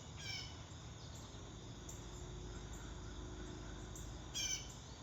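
Steady chirring of crickets and other insects, with a short bird call at the start and a louder one near the end.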